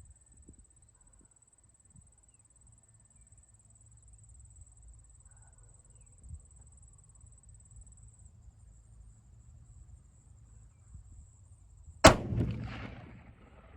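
A single shot from a Remington 700 .30-06 bolt-action rifle about twelve seconds in, its echo dying away over a second or so. Before the shot there is only a faint low rumble.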